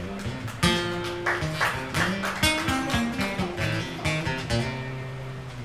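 Acoustic guitar playing an instrumental passage of picked notes and strums, with no singing.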